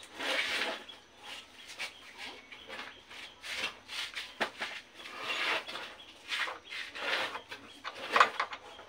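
Motorcycle front-end parts being handled and fitted by hand: irregular rubbing and scraping with a few sharp clicks and knocks, the loudest near the end.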